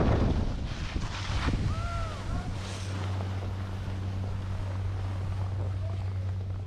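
Skis scraping and hissing over packed snow as the skier brakes to a near stop, with wind buffeting the microphone; the noise fades after the first second and a half. A steady low hum from the nearby lift station's machinery then sets in and continues.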